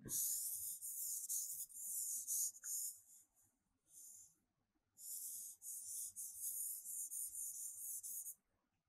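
Hand rubbing back and forth across the glass of a touchscreen whiteboard while erasing, a scratchy swishing in two stretches of about three seconds each with a short pause between.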